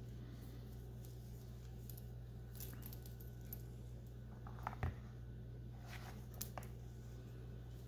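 Faint handling of a wristwatch with a rubber strap being lifted out of its box: a few soft clicks and rustles, loudest just before the five-second mark, over a steady low hum.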